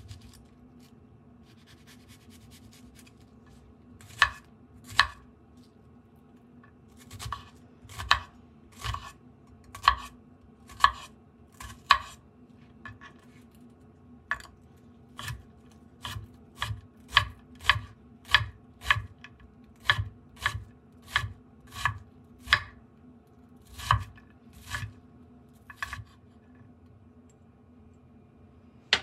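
Global stainless-steel knife chopping an onion on a bamboo cutting board: single knock-like strokes of the blade against the board, a few at first, then a steady run of about one to two a second, stopping a few seconds before the end.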